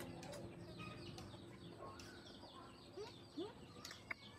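Faint bird chirping, many short quick chirps one after another, with two short rising squeaks about three seconds in and a sharp click near the end.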